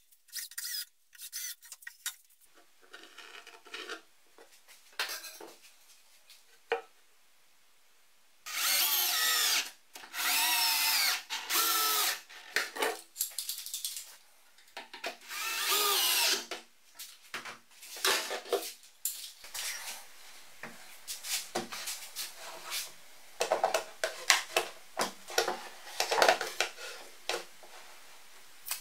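A cordless drill drives screws into plywood in several bursts of one to two seconds, its motor whine wavering as each screw goes in. Near the end comes a run of sharp wooden knocks and clatter as plywood parts are handled and fitted together.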